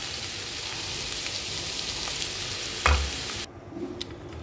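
Sliced bitter gourd sizzling steadily as it fries in oil in an aluminium pan, with a single sharp knock about three seconds in. The sizzle then cuts off suddenly, giving way to quieter stirring.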